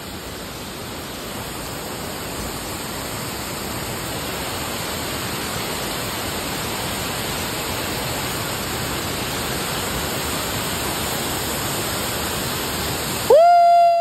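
Waterfall: a steady rush of water falling and splashing over boulders into a pool, slowly growing louder. Near the end the rush cuts off suddenly and a loud, steady pitched tone starts, sliding up into its note.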